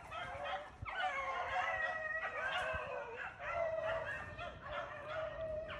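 A pack of beagles baying as they run a rabbit, many hound voices overlapping in a continuous chorus of drawn-out cries.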